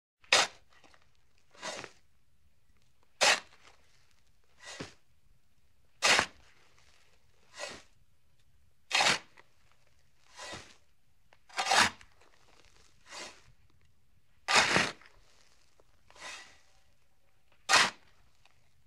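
A regular series of short hissing whoosh sound effects, about one every one and a half seconds, alternating a loud sharp one with a softer one.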